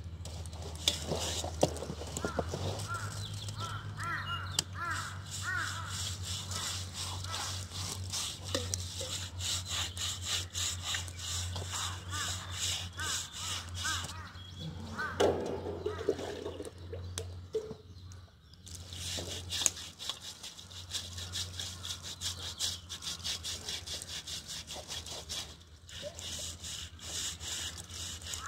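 A blade scraping the bristles off a scalded pig's hide in quick repeated strokes, with short breaks near the middle.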